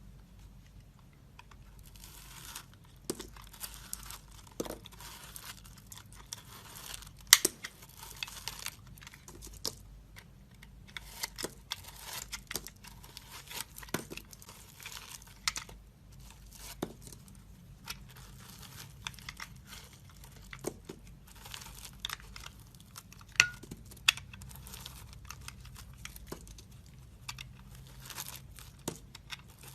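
Dry soap being crushed and broken up: irregular crackling and crunching with scattered sharp snaps, starting about two seconds in.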